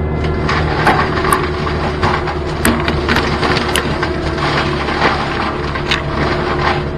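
Gyrotrac 500HF forestry mulcher on a CAT 289D3 compact track loader running steadily, its cutter drum shredding thick brush with frequent sharp cracks and splintering of wood over the engine and hydraulic drone.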